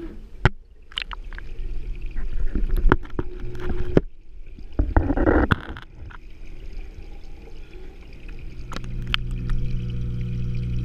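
Knocks and clicks of a GoPro's waterproof housing being handled at a saltwater aquarium, with a burst of water sound about five seconds in as it goes under. From about eight seconds in there is a steady low hum of the tank's powerhead wave pumps, heard underwater through the housing.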